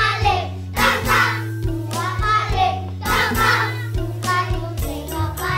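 Children singing a Balinese dolanan play song together over instrumental accompaniment with a steady beat.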